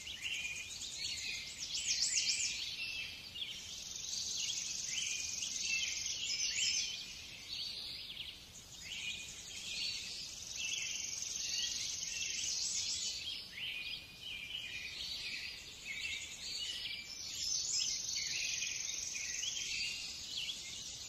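Small birds chirping and twittering continuously in many overlapping high calls, with brief lulls.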